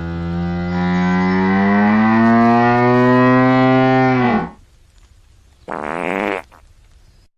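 Hippopotamus calling: one long low call whose pitch slowly rises before it breaks off about four seconds in, followed by a short breathy snort near six seconds.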